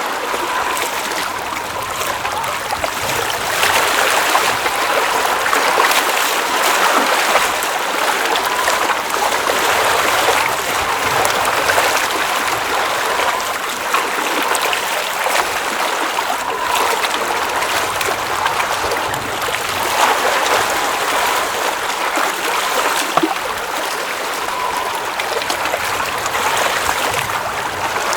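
Mountain lake water running and babbling steadily, a continuous rush with small gurgles and splashes.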